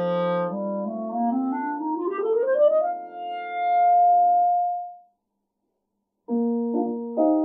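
Clarinet with piano accompaniment: a rising run climbs to a long held clarinet note that swells and fades away about five seconds in. A second or so of silence follows, then piano chords begin.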